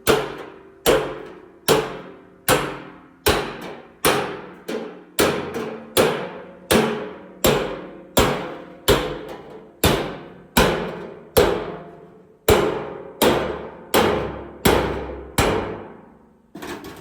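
A hammer striking sheet steel in steady, repeated blows, about one every second, some of them doubled. Each blow is sharp and rings out metallically before the next.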